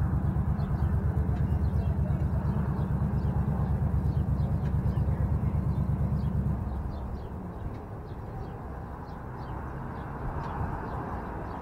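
A Harley-Davidson V-twin engine idles with a fast, even, lumpy beat. It drops away about six and a half seconds in. Faint bird chirps sound throughout.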